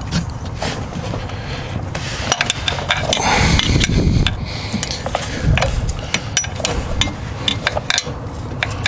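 Open-end wrench clinking and scraping against the exhaust header bolts: a run of irregular sharp metallic clicks and taps as the wrench is worked at a loose header bolt it can barely reach.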